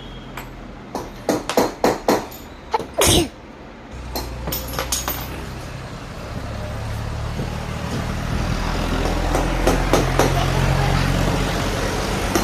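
Several sharp knocks and clicks, then about four seconds in a vehicle engine starts and runs steadily, growing louder over the next few seconds.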